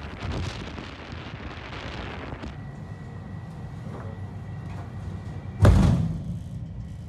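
Wind buffeting the microphone and sea spray rushing past a warship's bow. Then a single loud shot from the ship's foredeck naval gun about five and a half seconds in, with a short rumbling decay.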